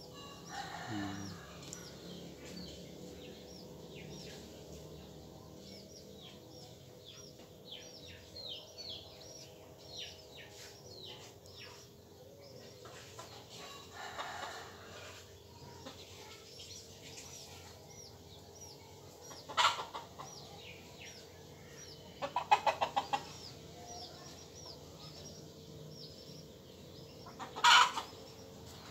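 Chickens calling: a run of short, high falling chirps over the first dozen seconds, then a few loud sudden clucks and squawks, with a rapid string of clucks about two-thirds of the way in.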